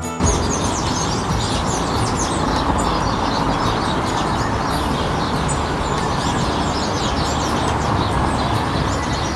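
A dense, continuous chorus of many small birds chirping together in a tree at sunset as they gather to roost, with a steady low rumble underneath.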